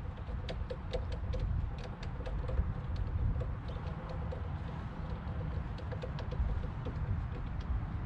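Scattered light clicks and ticks, irregular and several a second, over a steady low rumble.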